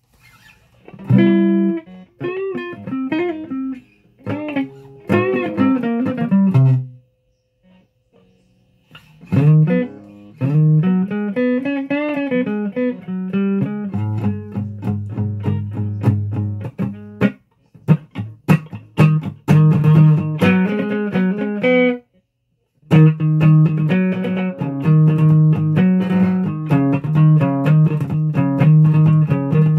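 Guitar played in short phrases with bending pitches, stopping briefly twice, then settling into a steady repeated riff for the last several seconds.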